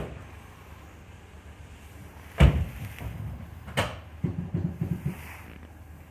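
Car door shutting with a loud thump about two and a half seconds in, then a second thump about a second later, followed by a brief low rattling.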